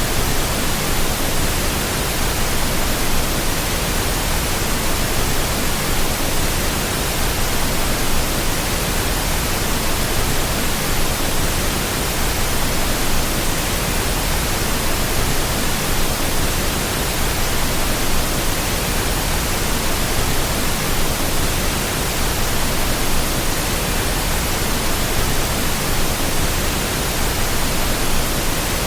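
Steady rushing water of a river, an even hiss that does not change.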